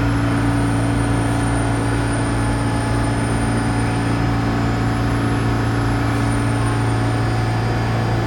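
New York City subway train in the station, giving a steady, loud hum with constant low tones and no clanks or brake sounds.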